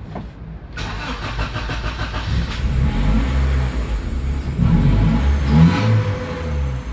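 Honda Civic four-cylinder engine starting about a second in and running, its revs rising and falling several times. It now starts after a crank-no-start fault that was cured by repairing the ECU (computer box), the corroded PGMFI relay and the broken wiring.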